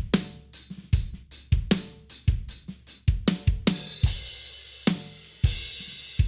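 Recorded drum kit groove with kick, snare and hi-hat played dry, with the spring reverb switched out, and cymbal crashes coming in about four seconds in.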